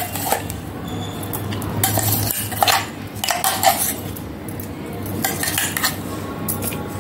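Metal spoon clinking and scraping against bowls as thick green masala paste is scooped out and dropped onto raw chicken, several separate clinks spread over the seconds, over a steady low hum.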